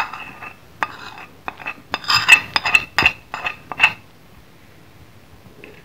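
Metal spoon scraping and clinking against a ceramic plate and bowl as ground spices are pushed from one to the other, with a run of sharp clinks and short scrapes that stops about four seconds in.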